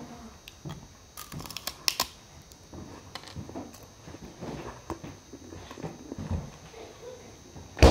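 Ice being eaten from a small glass close to the microphone: scattered sharp clicks and crackles of ice against glass and teeth, thickest between about one and two seconds in. One loud knock comes just before the end.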